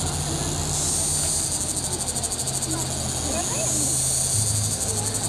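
Insects chirring in a high, rapidly pulsing chorus that swells and fades in long stretches, over a low steady hum.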